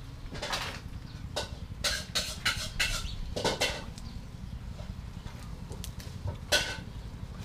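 Fresh leafy greens being torn off their stems by hand and dropped into a noodle bowl: short crackly rustles and snaps, a run of them in the first half and one more near the end, over a steady low hum.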